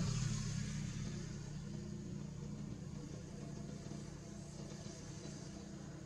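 Engine of a passing motor vehicle, loudest at the start and fading away steadily.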